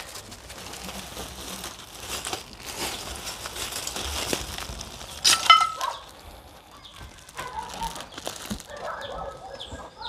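Rustling and crumpling as a coal fire is being lit, with a chicken giving one short loud call about halfway through and faint clucking near the end.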